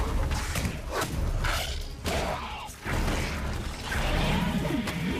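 Film monster-fight sound mix: a loud, dense run of sudden impacts, whooshes and creature growls, with breaks and sharp restarts around two and three seconds in.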